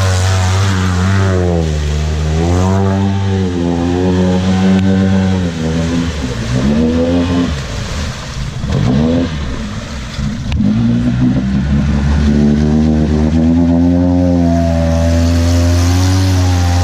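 Side-by-side UTV engine revving, its pitch rising and falling again and again. The revs dip about eight seconds in, then it pulls hard and holds high.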